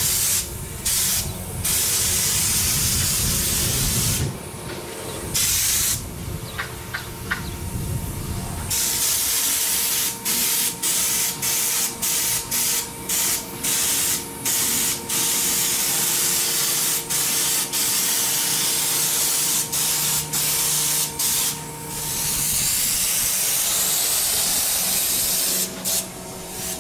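Air-powered spray gun with a can of texture coating screwed on, hissing loudly as it sprays in trigger pulls. There are long passes and runs of short bursts, with the hiss cutting on and off sharply.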